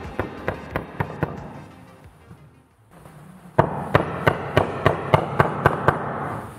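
Light, quick hammer taps on a Japanese chisel, about four a second, chopping out a narrow recess in a ginkgo board for an inlay. The taps die away about a second and a half in and start again, louder, after about three and a half seconds.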